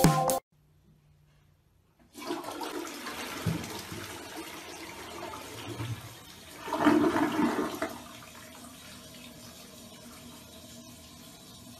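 A snatch of music cuts off, and after a short silence a toilet flushes: water rushing and swirling down the bowl, swelling about five seconds in, then settling to a quieter steady run of water.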